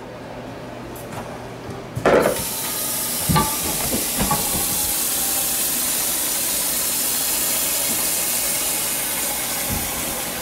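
Tap water pouring into a hot frying pan in a stainless steel sink, which sets off a steady hiss of sizzling steam. It starts with a knock about two seconds in, and a couple more knocks follow. The hiss shows how hot the pan still is.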